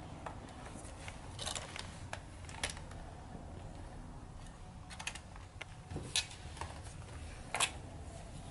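Hard plastic toy dinosaur figures clicking and knocking against each other as they are handled: scattered light clicks, with the sharpest near the end.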